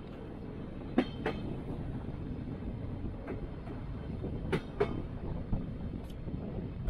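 Passenger train running slowly on its rails with a steady low rumble, its wheels clicking over rail joints in pairs, twice: the clickety-clack of a bogie's two axles crossing each joint.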